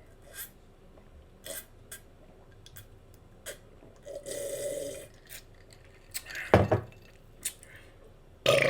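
Close-miked wet mouth sounds of eating a bacon cheeseburger: irregular lip smacks and chewing clicks, with louder bursts about six and a half seconds in and again near the end.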